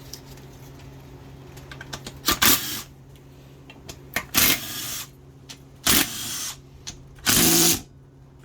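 Handheld power gun running in four short bursts of about half a second each, spinning out bolts on an automatic transmission's valve body, over a low steady hum.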